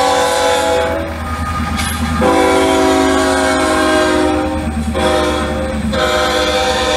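Sound-equipped HO scale model diesel locomotive blowing its multi-note horn in long blasts: one ends about a second in, another sounds from about two to five seconds, and a third starts near the end, over a steady low engine rumble.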